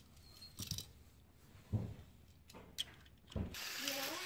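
A few light clicks and knocks of plastic toy train coaches being handled and coupled back onto the track. About three and a half seconds in, a steady hissing whir sets in as the battery-operated toy train runs along its plastic track.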